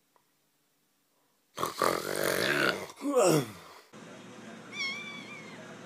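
Cat yowling loudly, with the pitch falling toward the end, cut off abruptly. Then a short high wavering call over a steady background hiss.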